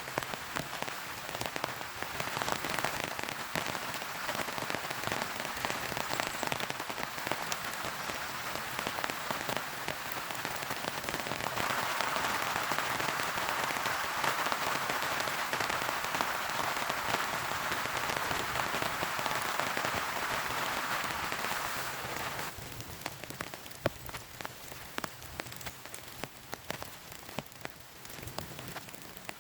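Heavy rain drumming steadily on a tent, with countless separate drop hits; it comes down harder for about ten seconds in the middle, then eases off.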